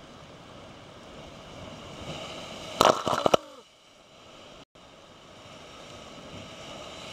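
Big ocean wave surging in and crashing over rocks, the rush of surf building and then a loud burst of close splashing about three seconds in as the spray breaks over the rocks. The surf rush builds again near the end.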